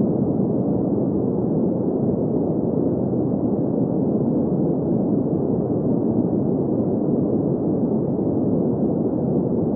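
Steady green noise for sleep: an even, unchanging rumbling hiss centred in the low-middle range, with nothing above about 2 kHz.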